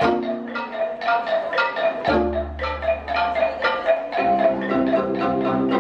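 Music led by a quick, even run of struck mallet-percussion notes, marimba-like, over low held bass notes that change about two seconds in and again about four seconds in.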